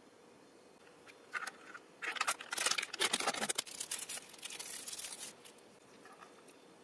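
Paper wrapper being torn and pulled off a pair of disposable wooden chopsticks: a short crinkle a little over a second in, then about three seconds of tearing and rustling that stops a little after five seconds.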